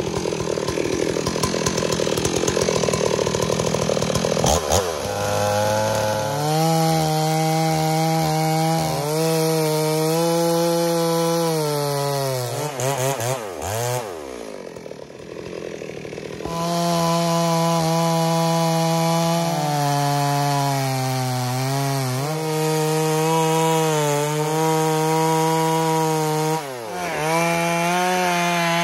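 Stihl MS 382 two-stroke chainsaw cutting into a wooden stump at high revs, its pitch sagging as the chain loads up in the cut and rising again as it frees, several times over. Around the middle it drops briefly to a lower, quieter run before revving back up.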